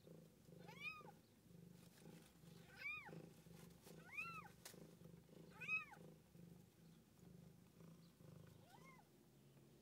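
Newborn kittens mewing: five short, high squeaks that rise and fall in pitch, the last one fainter. Under them runs the mother cat's low, steady purring.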